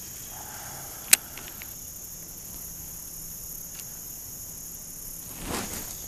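Steady high-pitched insect chorus, like crickets, with a single sharp click about a second in.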